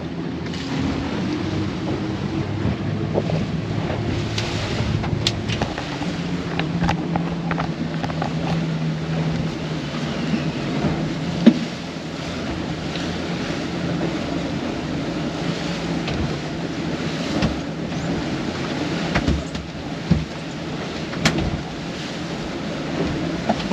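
Outboard motors of a center-console boat running underway at speed, with a steady rush of wind and water across the hull. The engine note shifts lower about six seconds in, and a few sharp knocks stand out.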